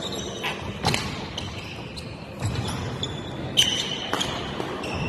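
Badminton rally: several sharp racket strikes on the shuttlecock, the loudest about a second in and another about three and a half seconds in, with short high squeaks of players' shoes on the court floor between them.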